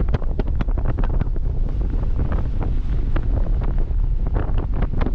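Wind buffeting the microphone: a loud, continuous low rumble broken by rapid, irregular crackles.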